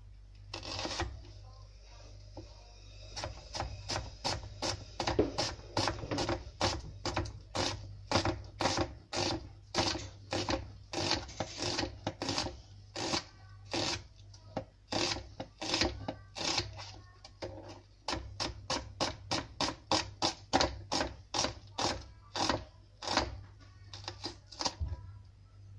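Kitchen knife slicing a red onion on a chopping board: a steady run of sharp knocks, about two to three a second, after a single knock near the start.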